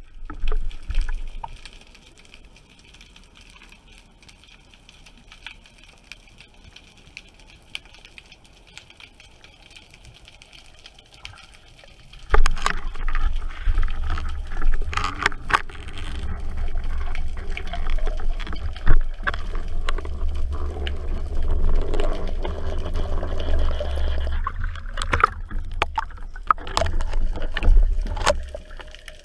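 Underwater sound picked up by a speargun-mounted camera. For about the first twelve seconds it is fairly quiet, with scattered faint clicks, while the diver stays still on the bottom. Then a loud low rumble of water rushing over the camera sets in suddenly and lasts until near the end as the diver swims up to the surface, with clicks and knocks throughout.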